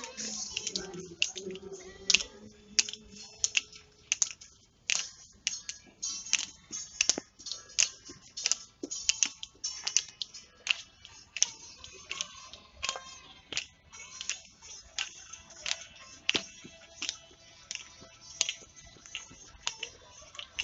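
Hand claps keeping a steady beat of about two a second, accompanying a dance.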